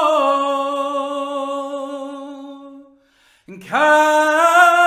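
A man singing unaccompanied in the Irish traditional style: a long held note with a slight waver fades away, then after a short breath the next word comes in with a small upward slide and is held.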